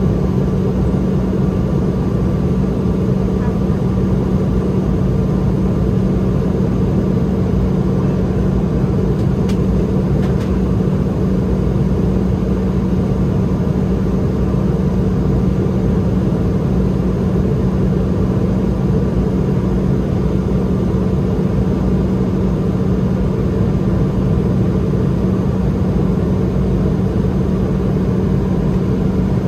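Steady cabin drone of a Boeing 717-200 in flight, its rear-mounted Rolls-Royce BR715 turbofan just outside the window, with a constant low hum over the rush of air.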